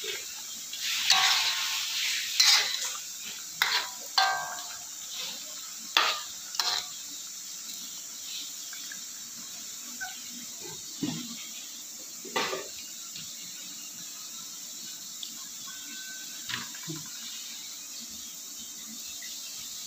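Kitchen clatter of metal cookware and utensils: a cluster of scrapes and clanks in the first few seconds, a few more sharp clinks over the next several seconds, then only occasional small knocks.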